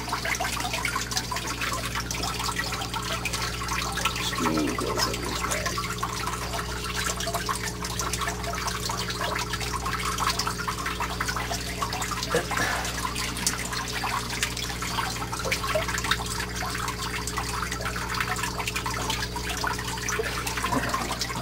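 Steady trickling and splashing of running water, over a low, even electrical hum.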